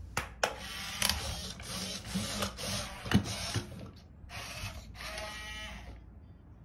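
i-Cybie robot dog's motors and plastic gears whirring and clicking in bursts as it moves its head and legs, with a short pause about four seconds in; the motor noise dies away near the end.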